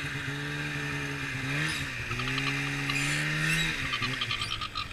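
Polaris snowmobile engine running under throttle, its pitch dipping briefly about two seconds in and again near four seconds as the throttle eases, then picking up, over a steady hiss.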